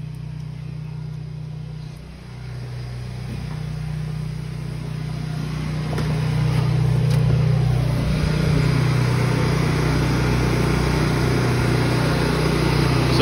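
Trailer-mounted carpet-cleaning machine (an electric trailer mount with vacuum motors) running with a steady drone. It grows louder over the first several seconds as it is approached, then holds level.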